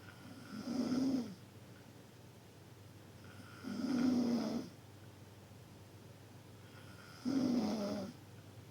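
A sleeper snoring loudly, three snores about three seconds apart, each lasting about a second.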